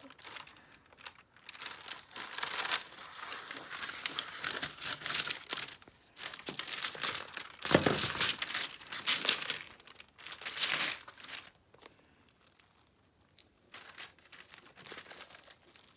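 Parchment paper crinkling under hands that knead and stretch a lump of slime, in irregular bursts. It goes quieter for a few seconds near the end.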